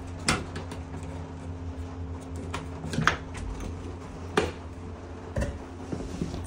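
Rain pattering steadily on the trailer's roof, under a steady low hum, with a few sharp knocks and clicks from handling. The loudest click comes about four and a half seconds in, as a hand works the door latch.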